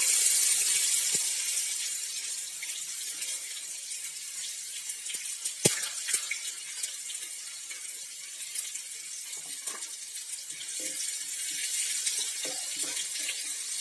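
Chopped onions sizzling in hot oil with mustard and cumin seeds in a kadai, loudest just after they go in, with one sharp tap about halfway through. Near the end a wooden spatula stirs them, knocking lightly against the pan as the sizzle picks up again.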